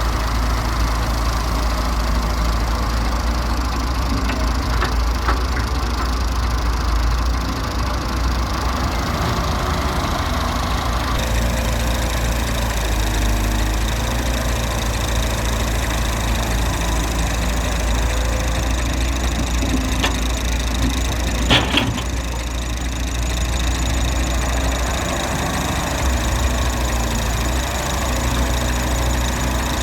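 Heavy diesel engines of an excavator and a tractor running steadily. The sound changes abruptly about a third of the way through, and there is one short, sharp clank about two-thirds of the way through.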